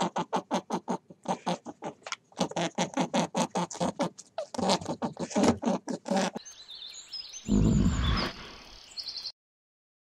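Rabbit grunting in a rapid series of short pulses, several a second, in groups. After about six seconds the calls give way to a noisy stretch with a heavy low thump, which cuts off suddenly about nine seconds in.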